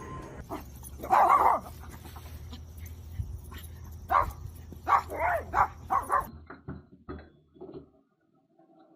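A dog barking: one loud bark about a second in, then a run of several barks between about four and six seconds, with fainter sounds trailing off after.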